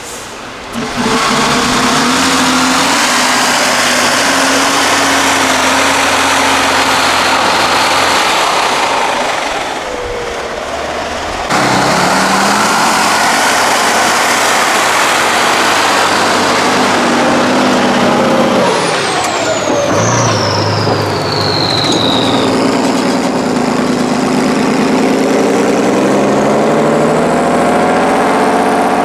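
Heavy off-road trial trucks' diesel engines working hard under load, revving up and down as they climb steep dirt banks. A high whistle falls in pitch partway through.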